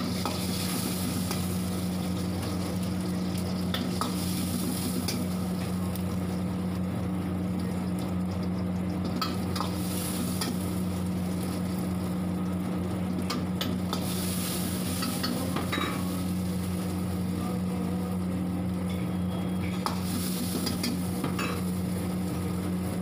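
Chopped onion and green chillies sizzling in hot oil in a steel wok, with a metal ladle clinking and scraping against the pan every few seconds. A steady low hum runs underneath.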